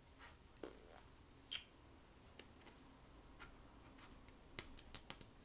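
Near silence broken by a few faint clicks and light taps, coming more often near the end: playing cards being handled and set down on a table.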